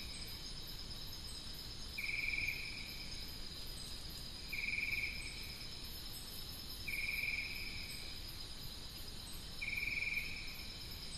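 Insects chirping: a steady high trill with a louder short chirp about every two and a half seconds, four in all.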